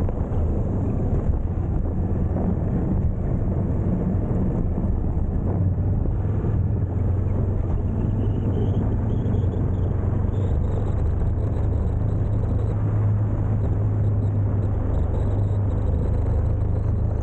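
Ducati Multistrada motorcycle engine running steadily while riding, mixed with wind and road noise. A faint whine rises in pitch about eight seconds in.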